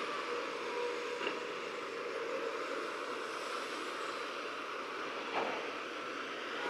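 Heavy construction machinery running steadily, with two short clacks, one about a second in and one near the end.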